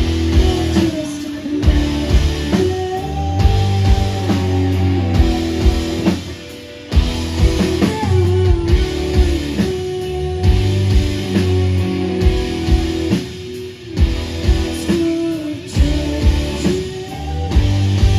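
Live indie rock band playing, with electric guitars, bass and a drum kit, and singing at times. The band sounds full throughout, with a short drop in loudness about six seconds in.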